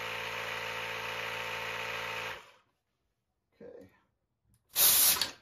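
Handheld electric tire inflator running with a steady motor drone while it pumps up a 20x4.0 fat e-bike tire, stopping about two and a half seconds in once the tire is at about 27.5 psi. Near the end comes a short, loud hiss of air as the hose chuck comes off the tire valve.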